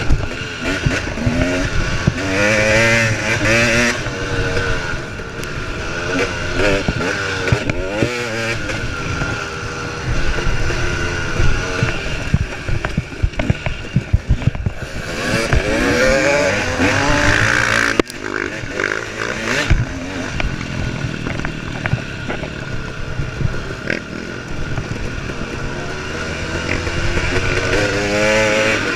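KTM 300 XC two-stroke dirt bike engine revving hard and falling off again and again as the rider works the throttle and gears, with knocks and rattles from the bike over rough ground.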